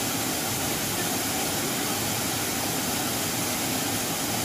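Waterfall pouring into a rocky plunge pool: a steady, unbroken rush of water.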